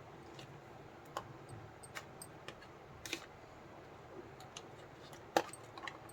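Scattered light clicks and taps of sweet packaging and small plastic pieces being handled, irregular, with the sharpest click about five seconds in.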